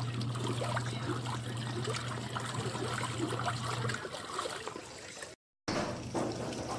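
Twin-tub washing machine running with water in the tub: water sloshing and trickling over a steady motor hum. The hum stops about four seconds in, and the sound cuts out for a moment near the end.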